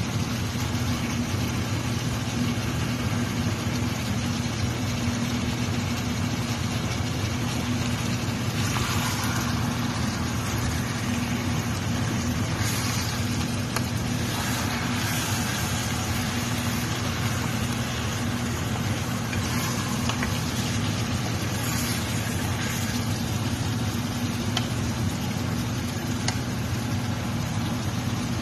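Chicken pieces sizzling in an enamel pot, with a few louder stretches of noise as they are stirred with a wooden spoon, over a steady low hum.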